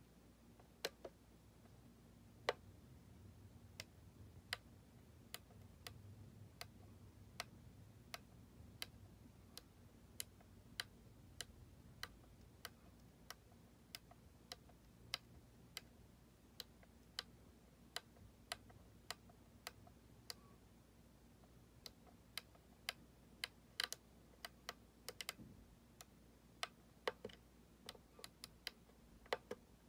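Mooer GE200 multi-effects pedal's value knob and controls clicking as they are turned and pressed: a scattered run of small, sharp clicks, roughly one or two a second, over a faint steady hum.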